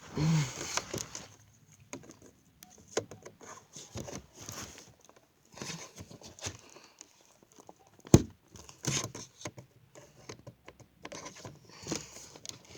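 Toy packaging being handled and worked open: irregular rustling, crinkling and clicking of plastic and cardboard, with one sharp knock about eight seconds in.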